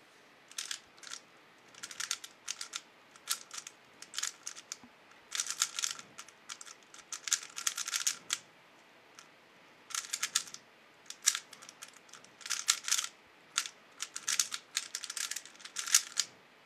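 A 3x3 speedcube being solved by hand: fast runs of plastic clicking and clacking as the layers are turned, broken by short pauses between runs.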